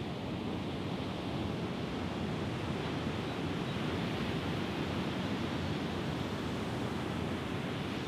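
Steady rushing of ocean surf and wind.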